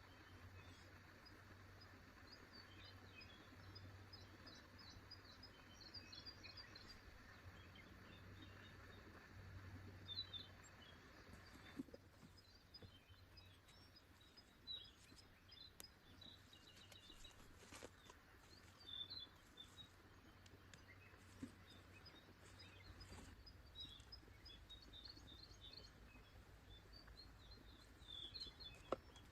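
Faint birdsong in the forest: small birds giving quick, scattered chirps, over a soft steady hiss that stops about halfway through. A few faint clicks sound in the second half.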